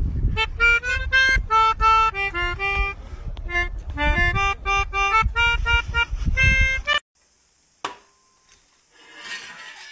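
A melodica, blown through its mouthpiece tube, plays a quick melody of short reedy notes. The notes cut off abruptly about seven seconds in, and a single faint click follows.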